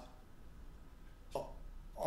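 A pause in a man's speech: faint room tone with a steady low hum, and one brief vocal sound from the speaker about one and a half seconds in.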